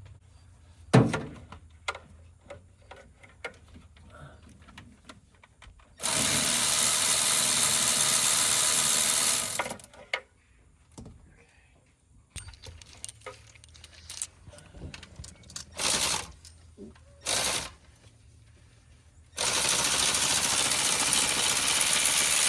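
Electric ratchet running in two long bursts of about three and a half seconds, one about six seconds in and one near the end, with two short blips between them, as it backs out spark plugs. Light clinks and clicks of tools and sockets fill the gaps.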